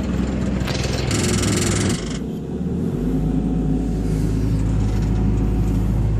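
Hitachi EX160LC-5 excavator's Isuzu diesel engine running steadily. About a second in there is a loud hiss lasting roughly a second, which stops abruptly. The engine note changes about three seconds in and then holds steady.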